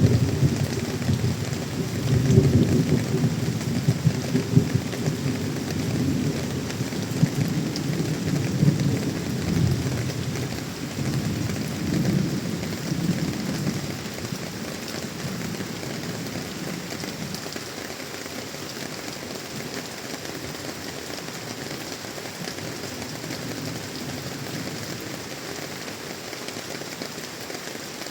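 Heavy monsoon rain falling steadily, with a low, uneven rumble in the first half that dies away about halfway through, leaving the rain alone.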